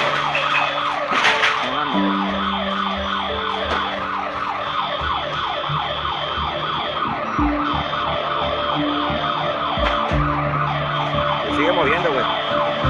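Several electronic alarms sounding at once, overlapping: a fast, repeated falling whoop several times a second mixed with steady tones that switch on and off every second or two.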